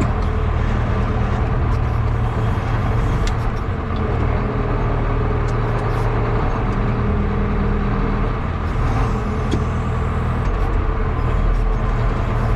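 John Deere tractor engine running steadily under load, a continuous low drone with a few faint clicks over it.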